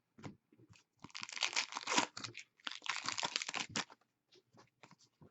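Crinkling and tearing of trading-card packaging being handled: two bursts of crackly rustling about a second apart, with small clicks and taps around them.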